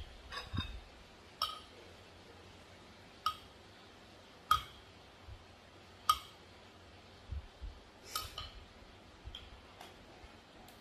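A metal spoon clinking against hard containers while seasonings for som tam are spooned into a clay mortar: about ten sharp, ringing chinks at irregular intervals, the loudest around the middle, with a few soft knocks among them.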